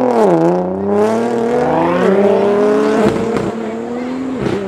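Nissan GT-R R35's twin-turbo V6 accelerating hard away, its pitch climbing and dropping at a gear change just after the start and again about two seconds in, then growing fainter as the car pulls away.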